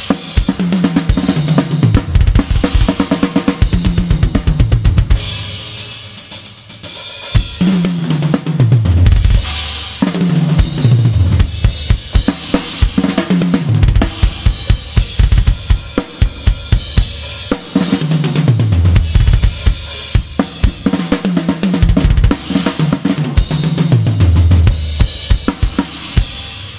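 Acoustic drum kit played in a steady groove: kick, Goliath snare drum and cymbals, broken four times by fills that fall in pitch down the toms, with bright cymbal wash between them.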